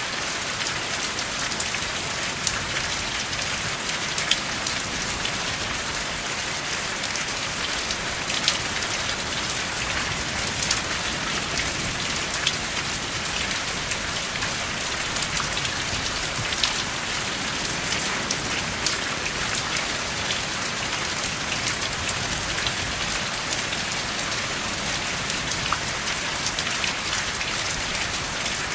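Steady rain falling, with sharp individual drop taps scattered through it and no thunder.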